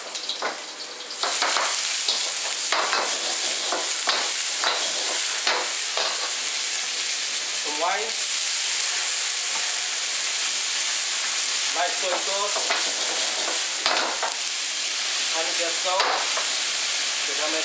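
Bean sprouts, carrots and garlic stir-frying in hot oil in a wok: a loud, steady sizzle that jumps up about a second in. It is broken by frequent scrapes and clinks of the utensil stirring against the wok, with a few brief squeals of metal scraping.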